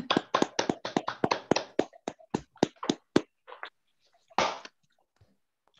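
One person clapping, a regular run of claps about four a second that thins out and stops about three seconds in. A single short burst of noise follows about a second later.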